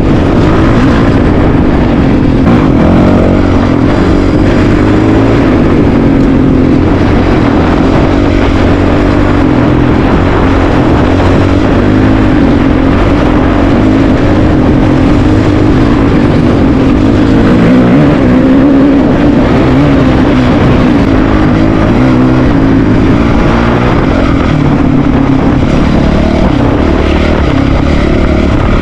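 Single-cylinder dual-sport motorcycle engine running under way, loud and continuous, its pitch wavering up and down with the throttle.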